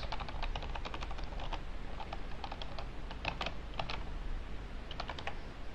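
Typing on a computer keyboard: a run of short, irregular key clicks.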